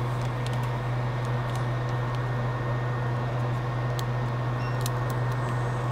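Steady low electrical hum over an even hiss, like a running fan or bench equipment, with a few faint light clicks around the middle and near the end as the iPhone is handled.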